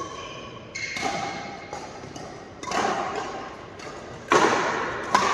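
Badminton play: a few thuds and sharp racket hits on the shuttlecock, spaced about a second or more apart, the loudest a little past four seconds in and a short sharp hit near the end, with brief voices between.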